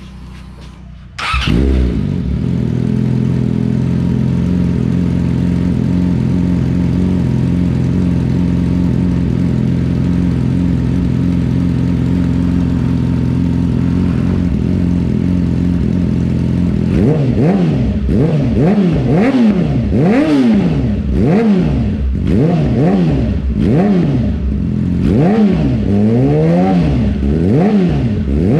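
2018 Yamaha YZF-R6's inline-four engine running through a LeoVince carbon-fibre slip-on exhaust: it starts about a second in and idles steadily, then from about halfway it is revved again and again, the pitch rising and falling with each blip.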